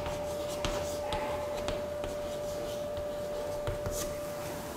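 Chalk writing on a chalkboard: a scatter of short, scratchy strokes and taps as letters are written.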